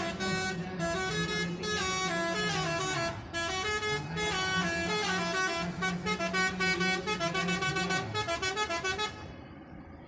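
Telolet horn, a multi-tone horn that plays tunes, sounding a melody of several notes at once that step up and down in pitch. It breaks into a run of quick short toots towards the end and stops suddenly about nine seconds in.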